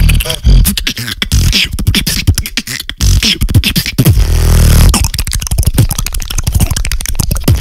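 Solo beatboxing close on a microphone with hands cupped around the mouth: heavy sustained bass sounds and kicks under a dense, fast run of clicks and snare hits.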